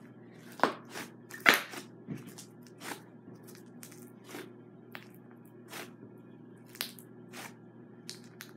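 Thick butter slime being pressed and squeezed by hand, giving irregular soft clicks and pops, the loudest two within the first second and a half.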